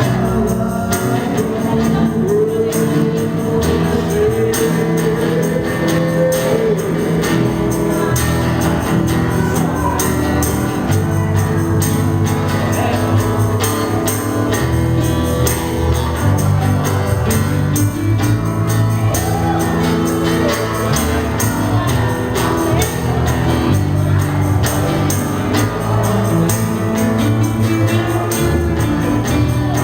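Live acoustic pop-rock band playing: acoustic guitars with a cajón keeping a steady beat, and a voice singing the melody.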